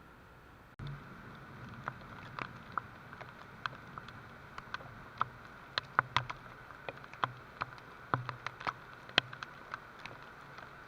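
Rain falling: a steady patter with individual drops ticking sharply and irregularly, several a second, on a hard surface. It starts abruptly about a second in, after a faint hiss.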